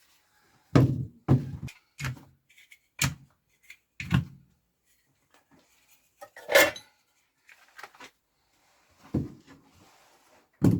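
Bench dogs and workpieces being placed on a workbench: a series of irregular wooden knocks and clunks, about eight in all, the loudest about six and a half seconds in.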